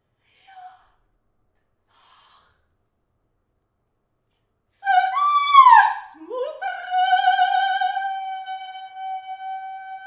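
About five seconds of near silence, then a loud, high pitched tone enters. It swoops up and then down in pitch, glides up from a low note, and settles into one long held note that slowly fades, part of a contemporary piano performance.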